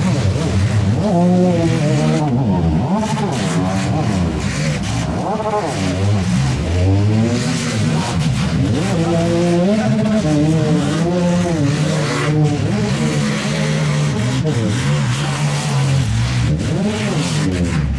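Several small demolition-derby cars' engines revving hard, their pitch rising and falling as they push and ram, with a few sharp bangs of car bodies colliding.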